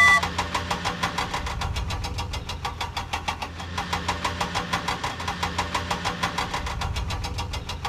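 A cartoon vehicle engine sound effect running steadily, with a rapid even chugging of about seven beats a second over a low hum.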